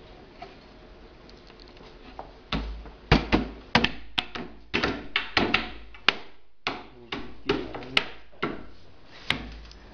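Irregular sharp knocks and thunks, starting about two and a half seconds in and coming roughly two a second: table panels being handled and fitted together during assembly.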